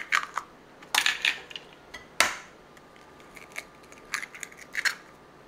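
Raw eggs being cracked and their shells broken open over a mixing bowl: a series of sharp taps and cracks, the loudest about two seconds in.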